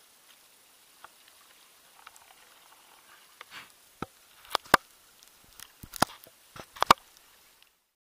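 Fingers handling an action camera, with sharp knocks and clicks on its body. A cluster of a dozen or so starts about four seconds in, after a faint, near-quiet start.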